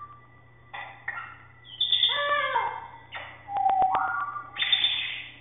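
Pet birds calling and whistling: a string of short whistled notes, some sliding down in pitch, a few sharp clicks about three seconds in, and a harsher squawk near the end.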